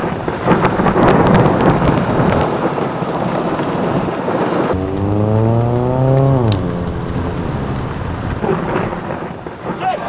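Thunderstorm: heavy rain with thunder crackling and rumbling. About five seconds in, a drawn-out pitched sound rises slowly over about a second and a half, then falls away, while the rain continues under it.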